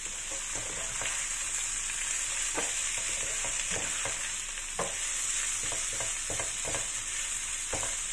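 Sliced bitter gourd and chilies sizzling steadily in oil in a nonstick frying pan while a slotted spatula stirs and tosses them, with irregular scrapes and taps of the spatula against the pan.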